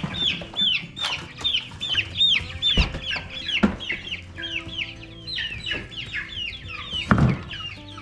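Young meat chickens peeping in a dense, fast run of short chirps that fall in pitch, several a second, with a few sharp knocks among them.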